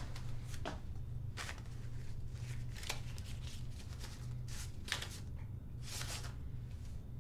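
Paper banknotes being flicked through one by one as they are counted by hand: a series of short, crisp paper rustles, irregular and about one a second, over a steady low hum.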